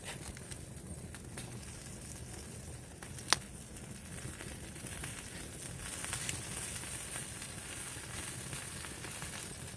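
Beef sizzling and crackling as it cooks, the crackle growing denser about halfway through, with one sharp pop about a third of the way in.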